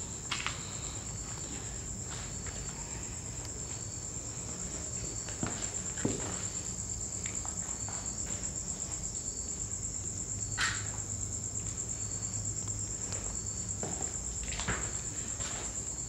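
Night insects trilling: one steady high-pitched note that never stops. A few scattered short clicks and scuffs sound over it.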